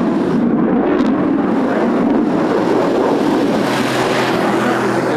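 Eurofighter Typhoon's twin Eurojet EJ200 jet engines in flight: a loud, steady rushing noise that grows brighter and hissier about four seconds in.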